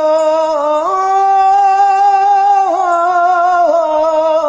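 A man singing an unaccompanied Turkish uzun hava (bozlak), drawing out one long ornamented note: the voice steps up in pitch about a second in and holds there with small melismatic turns.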